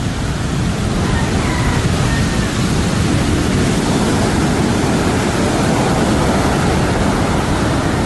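Heavy surf: large ocean waves breaking and foaming whitewater rushing up the beach, a loud, dense, steady rush of noise.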